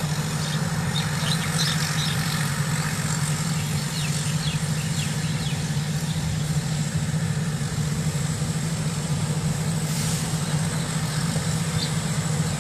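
Combine harvester's diesel engine running steadily with a constant low hum, light high ticks over it in the first few seconds.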